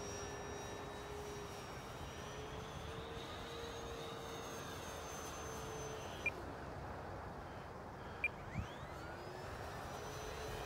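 The brushless electric motor and propeller of an E-flite Air Tractor 1.5m RC plane whine steadily, the pitch wavering with throttle, then fall away about six seconds in and rise again near the end. Wind noise on the microphone runs underneath.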